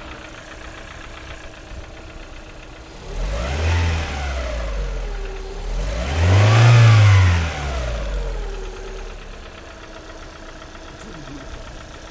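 Lada Priora's four-cylinder petrol engine idling with a tapping from the hydraulic valve lifters, typical of worn or oil-starved lifters. About three seconds in it is revved briefly, then again higher and longer around six to seven seconds, each time falling back to idle.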